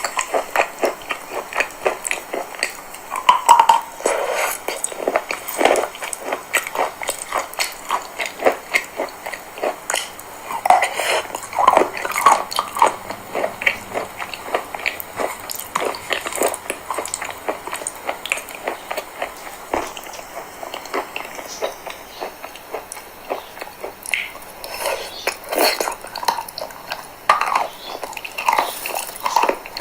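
Chalk being bitten and chewed close to the microphone: a dense run of quick crunches and crackles, with louder bites every few seconds.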